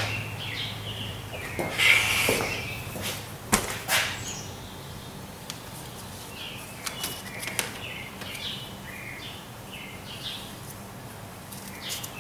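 Plastic sampling tubing being handled and fed into an engine's dipstick tube: light rustling with a few sharp knocks, the loudest in the first four seconds.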